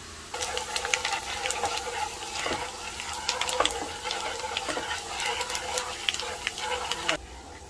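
Minced lemongrass sizzling and crackling in hot oil in a frying pan, stirred with wooden chopsticks, as it fries golden and fragrant. The crackle starts suddenly just after the start and cuts off near the end.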